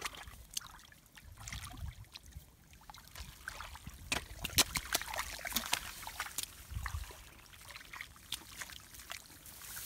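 Wet mud and shallow muddy water being worked with a hoe and bare hands: irregular small splashes, squelches and sharp clicks, busiest about halfway through, with a dull thud a little later.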